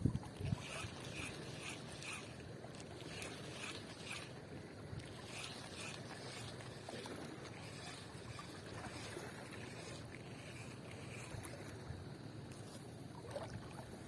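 Faint shoreline ambience: a low, even hiss of wind and water. For the first few seconds it carries a soft, regular pulsing about two or three times a second, and there is a brief knock at the start.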